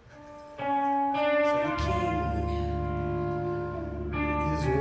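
Live theatre band playing an instrumental introduction: held notes come in one after another as it rises from quiet, and a deep bass note joins about two seconds in.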